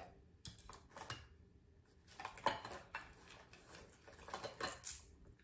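Small items being handled and sorted: light plastic clicks and rustles at uneven intervals, a little louder about halfway through and near the end.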